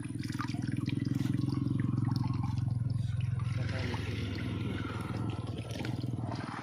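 Water dripping and light splashing from a fishing net being shaken out to free small fish, over a low steady rumble.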